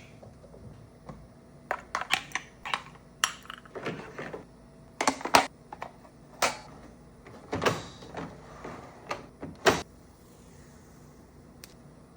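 Irregular clicks, knocks and clatter of espresso machine parts and accessories being handled and set in place, with two sharper knocks about five and ten seconds in.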